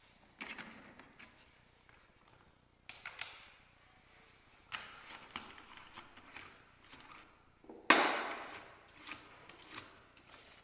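Metal spanner and angle grinder being handled on wooden floorboards while a fibre sanding disc is changed: several separate clinks and knocks, the loudest about eight seconds in.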